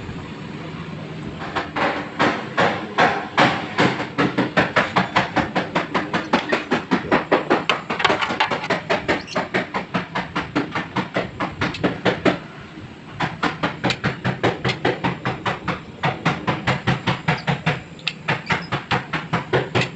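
Rhythmic back-and-forth abrasive strokes on a chrome-plated plastic car grille, about three a second, taking off the chrome. The strokes pause briefly about twelve seconds in, then carry on.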